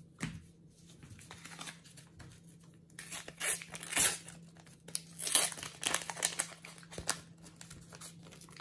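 A Panini sticker packet is torn open by hand and crinkled as the stickers are pulled out. There is light rustling at first, then a run of sharp crackling and tearing from about three seconds in.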